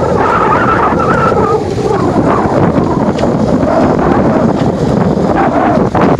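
Loud, continuous wind buffeting the microphone, with waves and the boat's 1.5 HP Honda outboard motor underneath.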